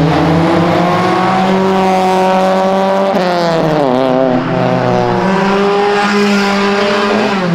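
A car engine revving hard as a car accelerates past, a loud sustained note that drops sharply about three seconds in, then climbs again and eases off near the end.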